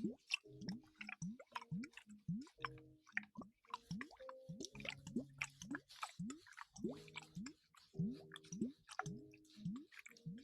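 Close-up wet ASMR sounds: soft squishing and crackling with short rising drip-like plops, about two a second.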